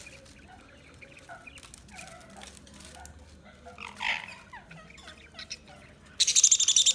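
Budgies chirping: many short calls that glide up and down in pitch, with a louder call about four seconds in. Near the end a loud, rapid, harsh chatter breaks in.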